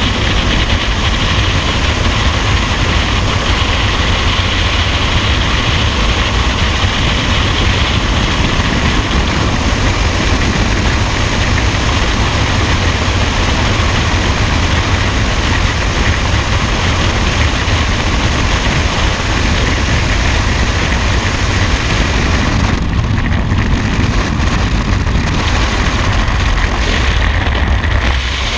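Freefall wind rushing over the camera's microphone: a loud, steady rush of air, heaviest in the low end, which thins a little in the higher part in the last few seconds.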